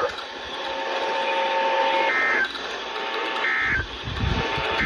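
EAS end-of-message data bursts on NOAA Weather Radio: short bursts of warbling digital tones about a second and a half apart, with a third starting right at the end, over steady radio hiss. They mark the end of the alert message.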